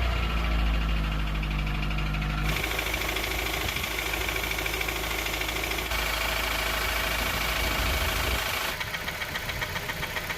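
Honda CR-V's K20 inline-four engine running, with a fast, even ticking and knocking through it that is plainest near the end. The owner suspects camshaft lobe galling.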